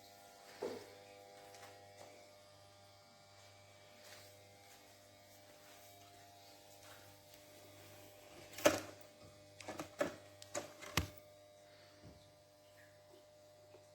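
Faint steady electrical hum, with a handful of sharp clicks and knocks between about nine and eleven seconds in.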